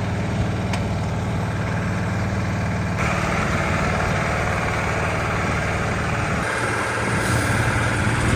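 Sugar beet cleaner-loader running steadily, a low engine-driven hum, growing fuller and harsher about three seconds in.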